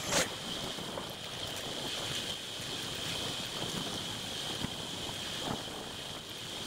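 Wind rushing over the microphone of a bicycle moving fast on a paved road, with tyre noise under it and a steady high-pitched buzz. There is a brief loud gust just after the start.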